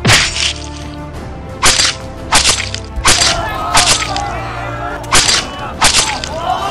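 Film soundtrack music with a string of loud, sharp cracks and hits laid over it, about seven or eight of them at uneven intervals of half a second to a second and a half: action-scene sound effects.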